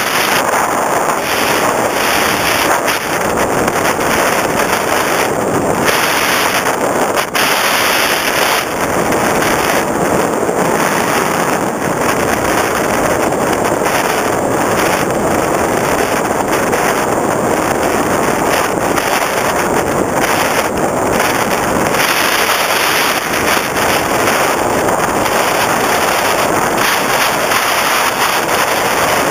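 Steady rush of air over the onboard camera's microphone on a flying FPV Raptor RC plane, a loud even noise with no clear motor tone.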